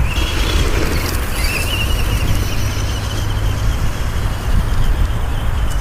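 Wind buffeting the microphone with a heavy low rumble, over the thin high whine of a Traxxas Stampede 4x4 RC monster truck's brushed electric motor, its pitch wavering as the throttle changes.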